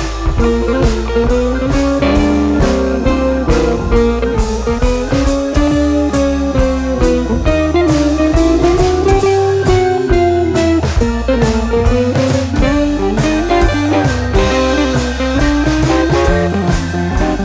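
Background music: a guitar-led track with a drum kit keeping a steady beat, its melody gliding up and down.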